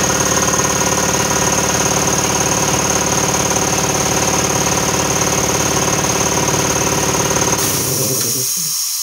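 Harbor Freight 3 HP air compressor running steadily, driven by its newly wired 220 V Smith & Jones replacement motor, which is working properly. Near the end the motor shuts off and winds down while air hisses out.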